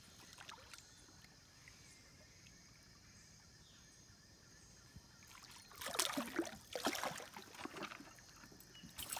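A hooked peacock bass splashing and thrashing at the surface beside the canoe, a burst of loud splashes about six seconds in with a few more near the end, after a stretch of faint, steady river quiet.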